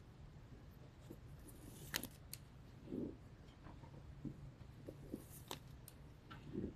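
Faint handling sounds of fingers working 1 mm waxed polyester cord while tying macrame knots: soft rubbing and scattered small clicks, a few sharper ones about two seconds in and again past the middle.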